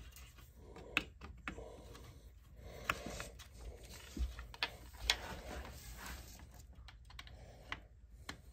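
A small hand screwdriver driving a screw through a ramrod thimble into a rifle stock: light, irregular clicks and scrapes as the blade turns in the screw head and the work is handled.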